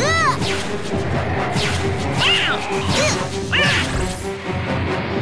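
Cartoon action soundtrack: background music under a series of short pitched sound effects that rise and fall, with a few crashing impacts.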